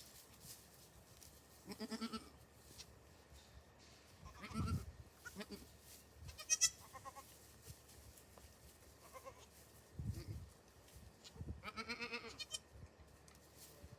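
Goats bleating: several separate quavering bleats, one of them higher-pitched and a longer one near the end. A couple of low bumps or thumps come between the calls.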